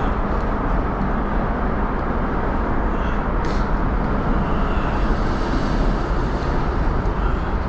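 Steady rumble of road traffic crossing a bridge, an even noise with no breaks.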